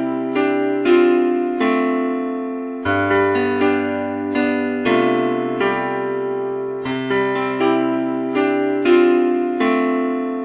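Background music: a solo electric piano or keyboard playing slow, sustained chords, a new chord struck every second or two.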